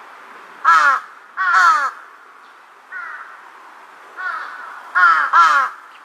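Large-billed crows cawing: a series of harsh caws, each falling in pitch, with two loud ones about a second in, fainter ones in the middle, and two loud ones close together near the end.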